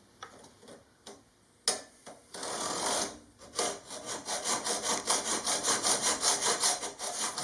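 A few knocks as the work is set up, then a hacksaw cutting a metal piano hinge to length: quick even back-and-forth strokes, about four a second, starting about two and a half seconds in.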